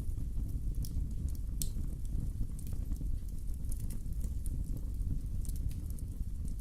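Wood fire crackling in a fireplace: a steady low rumble of the flames with scattered sharp pops and snaps from the burning wood.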